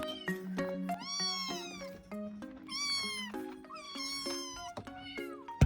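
Kittens meowing three times, high-pitched calls that rise and fall, over soft background music.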